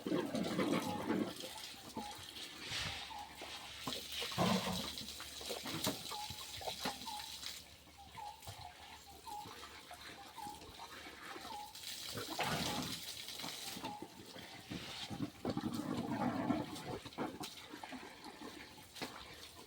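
Water splashing and gushing irregularly as an elephant bathes itself.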